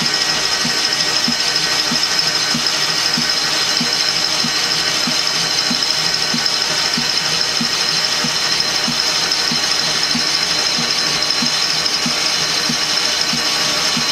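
Metal lathe running steadily while a turning tool cuts along a metal tube, with a steady high whine and a low knock repeating about three times a second.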